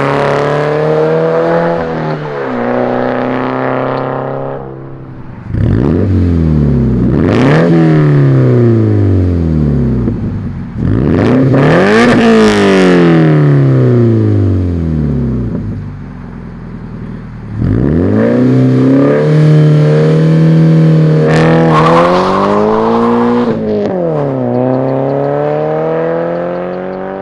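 Toyota 86's FA20 flat-four engine through an aftermarket exhaust, revving hard and falling away several times as the car accelerates and passes, its pitch climbing steeply and then dropping back.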